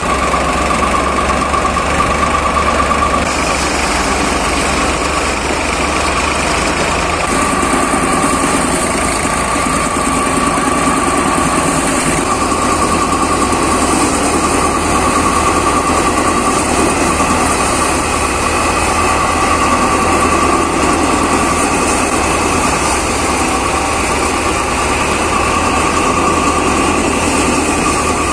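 Tractor-driven paddy threshing machine running steadily while threshing, the 42-horsepower tractor engine driving it with an even low drone and a constant whine on top.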